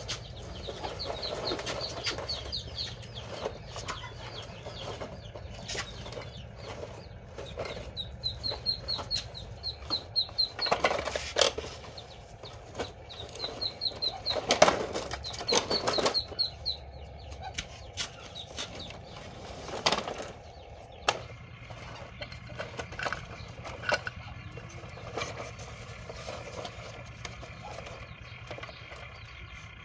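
Irregular knocks, clicks and scrapes of toy construction trucks being handled and pushed over dirt and stones, with a bird's quick high chirping trills in the first half.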